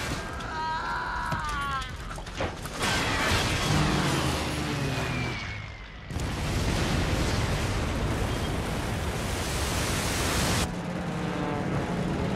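War-film battle sound effects: a dense, continuous roar of explosions and fire. It dips briefly and then comes back with a sudden loud blast about six seconds in.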